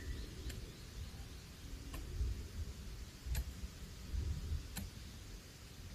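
Four faint, sharp ticks, evenly spaced about a second and a half apart, over a low, uneven rumble.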